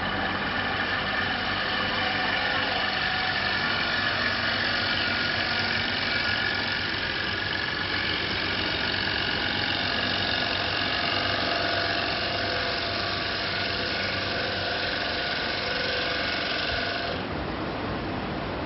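CNC wood lathe running as it turns a round wooden plate blank: steady machine noise with a whine in several tones, the higher part of which stops about seventeen seconds in.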